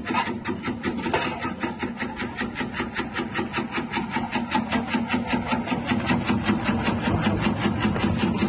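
Electric tuber chip-slicing machine with a 180-watt motor running and slicing: a steady motor hum with a rapid, even clatter of about six strokes a second from the spinning blade disc.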